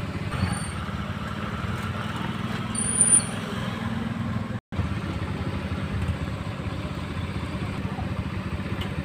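Motor scooter engine running steadily with a low hum, with a short high squeal about three seconds in. The sound cuts out completely for an instant about halfway.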